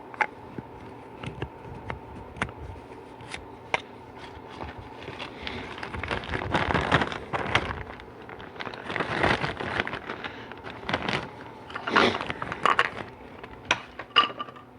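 Transmission parts handled on a workbench: scattered sharp clicks and light knocks, then from about five seconds in repeated bouts of scraping and rustling as parts are moved and set down.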